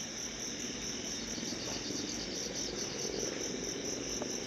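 Crickets and other night insects calling, a steady high-pitched trilling.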